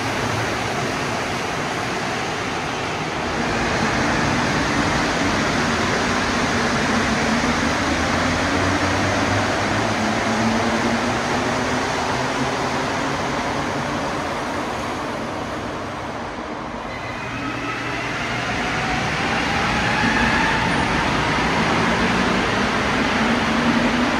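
Montreal Metro rubber-tyred train pulling away, its motor whine rising in pitch over a steady rumble, then a brief lull and a second rising whine about two-thirds through as a train accelerates again.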